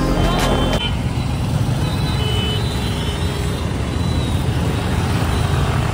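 Road traffic at a busy junction: a steady rumble of passing car and motorbike engines and tyre noise, starting about a second in as earlier music cuts off.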